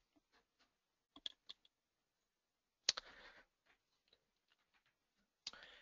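Near silence with a few faint computer clicks: two light clicks a little after a second in, a sharper click followed by a brief rustle near three seconds, and one more near the end.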